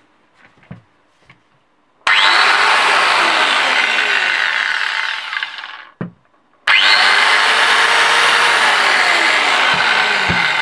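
Rebir 180 mm angle grinder with no soft-start fitted, switched on twice. Each time it jumps straight to full speed with a sudden, loud start and then runs steadily. The first run winds down after about four seconds; the second starts about a second later and is beginning to fade near the end.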